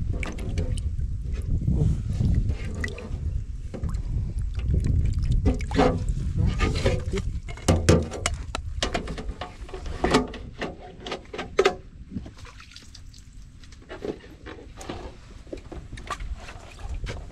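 Water splashing and sloshing in a clear plastic tub as hands handle and let go of goldfish, with many short splashes and knocks over a low rumble, quieter in the last few seconds.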